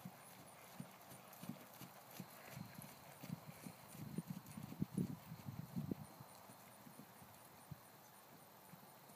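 Hoofbeats of a ridden draft-cross Hanoverian-cross mare on grass turf: a run of dull thuds that grows louder about three seconds in as she passes close, then fades as she moves away.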